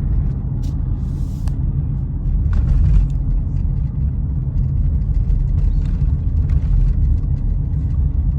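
Steady low rumble of road and engine noise inside the cabin of a 2009 Saturn Vue while it is being driven.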